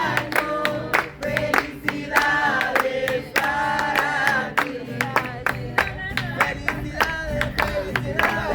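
A group of people singing together, with guitar accompaniment and hands clapping along in a steady rhythm.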